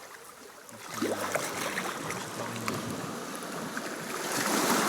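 Sea surf washing onto the beach, one wave swelling to its loudest near the end.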